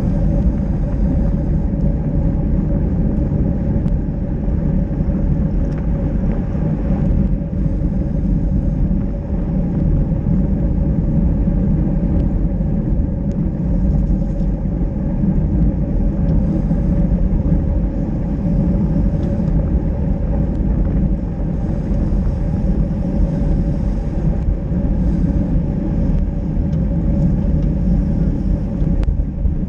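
Steady rumble of wind buffeting a bike-mounted action camera's microphone, mixed with the road noise of bicycle tyres rolling on wet asphalt, while riding at speed in a group of cyclists.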